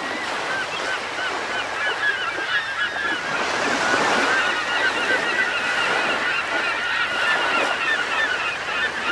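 A flock of birds calling: many short, overlapping calls in a continuous din, slightly louder around the middle.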